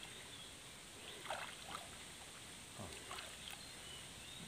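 Faint sloshing of pond water with a few small splashes, in two short clusters.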